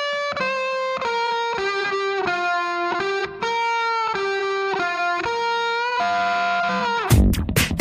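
Background music: a lead melody of held notes with a lighter beat underneath. The full, loud drum beat comes back in about seven seconds in.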